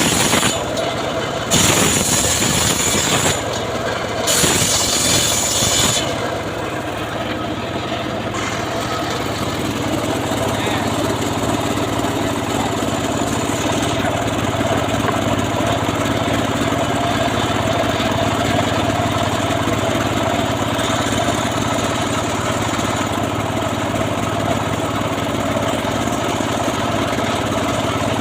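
Homemade srekel sawmill running. Three loud, harsh bursts in the first six seconds, then a steady running hum.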